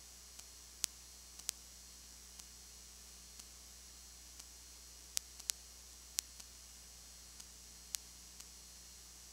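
Faint steady hiss and low hum of a nearly empty audio track, with a faint tick about once a second and a few sharp, louder clicks: twice in the first second and a half, three times between five and six and a half seconds in, and once near eight seconds.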